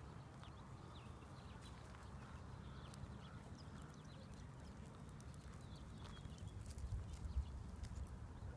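Distant thunder rumbling faintly, swelling about seven seconds in, with a few faint bird chirps.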